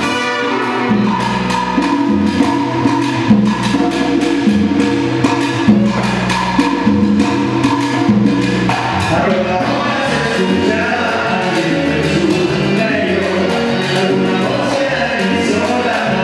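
A salsa band playing, with bass guitar, congas and other percussion keeping a steady beat; a voice comes in singing about halfway through.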